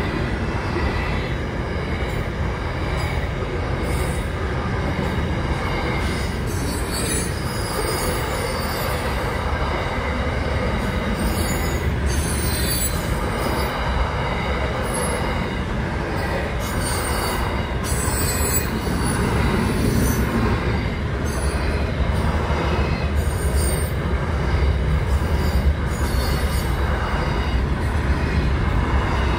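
Container freight train's wagons rolling steadily past at close range, a continuous rumble of wheels on rail, with wheel squeal rising and fading every few seconds.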